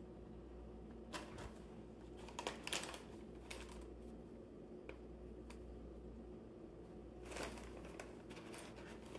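Brown packing paper and a small cardboard box rustling and crinkling in several short, faint bursts as a cat shifts and paws at the paper inside the box.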